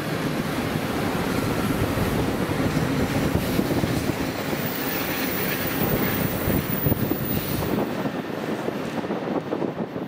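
Bilevel passenger train in Amtrak California livery, led by a diesel locomotive, running past on the track with a steady rumble of wheels on rail. The sound thins out near the end as the train pulls away.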